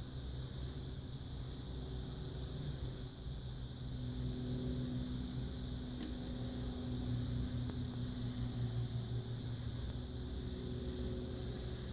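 A steady low mechanical hum with a held higher tone over it for much of the time, and one faint tick about six seconds in.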